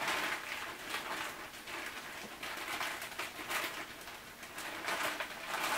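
Plastic zipper freezer bag crinkling and rustling as it is handled and its zip seal is worked open to let the air out.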